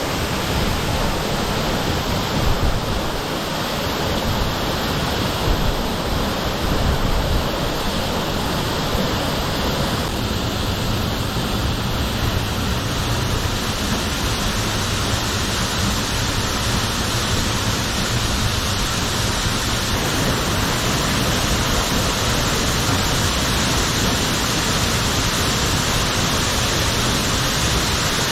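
Ichijo Falls, a waterfall on the Ichijodani River, pouring steadily as an even, dense rush of falling water, its hiss growing a little brighter about halfway through.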